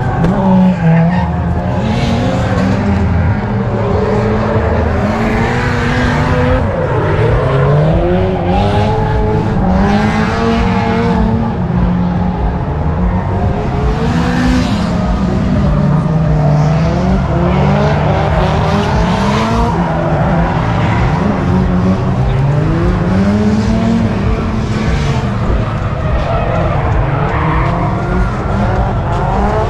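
Several car engines revving up and down one after another and over each other without pause, with tire squeal, as from cars being driven hard on a track.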